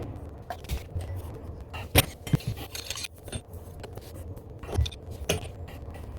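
Scattered clicks, knocks and scrapes of hand tools and copper pipe being handled during a pipe repair, the sharpest knock about two seconds in.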